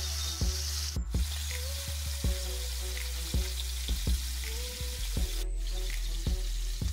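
Pork ribs sizzling in hot oil in a skillet, under background music with a steady beat and bass.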